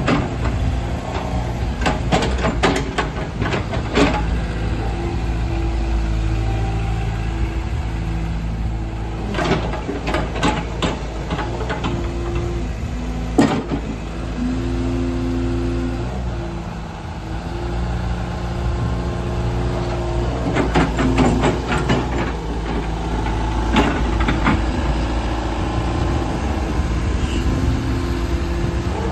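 Hyundai HX140 crawler excavator's diesel engine running steadily under a shifting hydraulic whine as the boom and arm are worked, with scattered metallic knocks and clanks.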